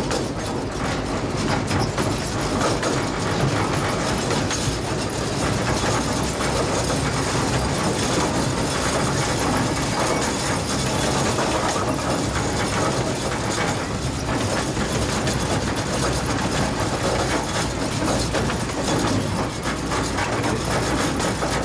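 Heard from aboard a 15-inch gauge miniature train: the steady running noise of the passenger cars rolling on the rails, with light irregular clicks from the wheels.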